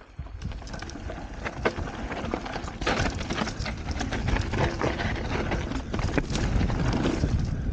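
2015 Norco Range enduro mountain bike rolling fast down a dry dirt and rock trail: knobby tyres crunching over the ground, with irregular clicks and rattles from the bike and a low rumble of wind on the microphone, growing louder as speed builds.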